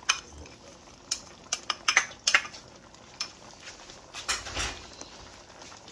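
Red plastic spoon clinking and tapping against a small glass bowl and a steel cooking pot as chopped celery is spooned into the pot. A scatter of sharp light knocks, most of them in the first two and a half seconds, with a few more later.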